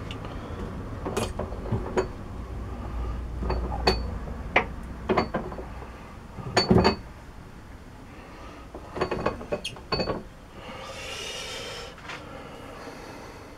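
Metal tools and steel parts being handled at a lathe: a series of sharp clinks and knocks with a short metallic ring, loudest in clusters about seven and ten seconds in, over a low hum in the first few seconds.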